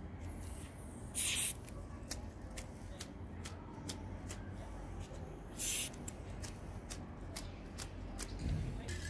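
Aerosol spray-paint can hissing in two short bursts, about a second in and again past the middle, with faint quick ticks throughout.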